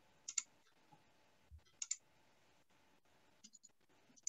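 Faint, sharp clicks, mostly in quick pairs, a few times over the span, with a soft low thump between them.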